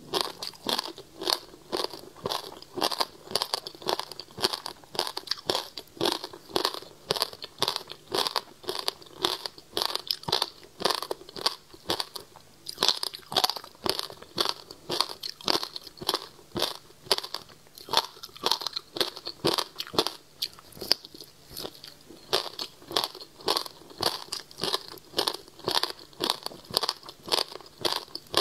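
Crunching and chewing of frozen passion fruit ice, a slab of frozen pulp full of seeds, close to the microphone: a steady run of crisp crunches, a few a second, with a short lull about twelve seconds in.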